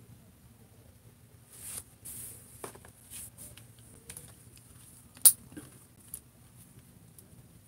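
Hands handling and posing a plastic action figure on a tabletop: rustling and light clicks and taps, with one sharp, loud click about five seconds in.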